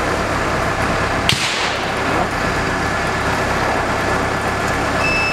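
A truck's engine running steadily at idle, with one sharp snap about a second in. Vehicle reversing beeps start near the end.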